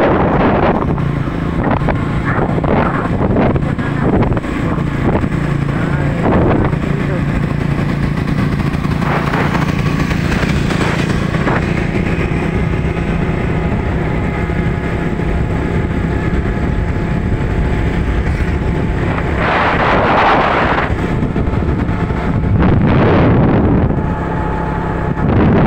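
Motorcycle engine running steadily while riding, with wind buffeting the microphone. The wind gusts louder about twenty seconds in and again near the end.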